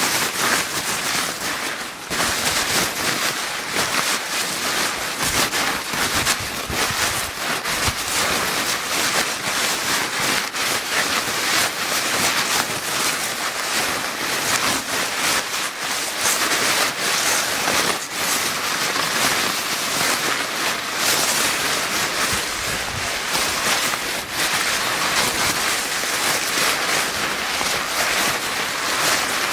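Paper bag crinkling continuously, a dense, irregular crackle of rustling paper.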